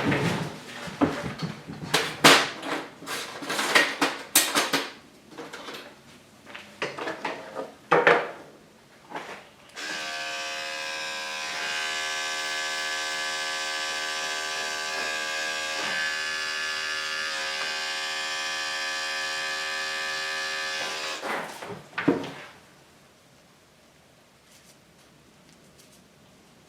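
Clattering knocks and clicks of handling and tools, then electric grooming clippers switched on and running with a steady hum for about eleven seconds before they cut off, followed by a couple of knocks.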